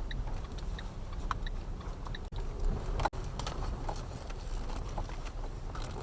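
Car driving over a rutted dirt forest track, heard from inside the cabin: a steady low engine and road rumble with scattered small knocks and rattles from the bumps. The sound drops out briefly twice, about two and three seconds in.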